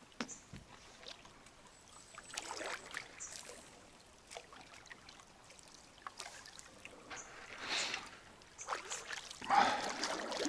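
Faint water sounds around a small boat on a river: a few soft swishes and splashes, the loudest near the end.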